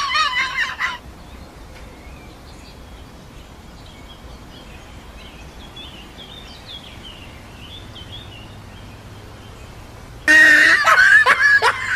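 A quiet background with faint high chirps. Near the end a sudden loud run of rapid high-pitched cries sets in, each cry falling in pitch, several a second.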